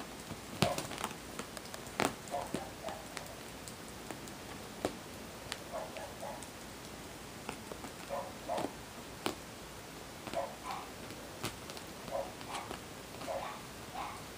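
Bengal kitten purring close to the microphone, the purr rising and falling in soft pulses with each breath, with a few sharp clicks and rustles of the kitten moving on a fabric sofa.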